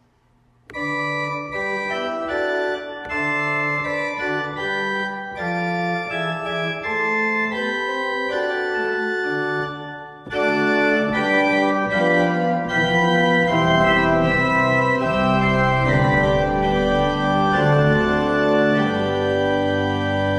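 Organ music: held chords that change roughly once a second, starting just under a second in. After a brief dip about halfway, it grows louder and fuller, with deep bass notes joining.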